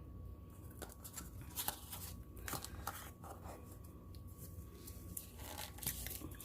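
Scattered light clicks and scrapes of plastic paint bottles and a cup being handled while paint is added to an acrylic pour cup, over a faint steady hum.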